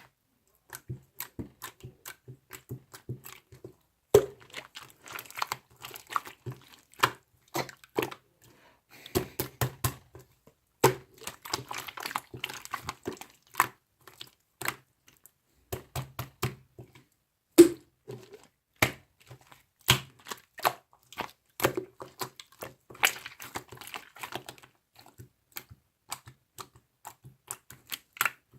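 Clear slime being squished and poked by hand: an irregular run of sticky clicks and small snaps, some louder than others.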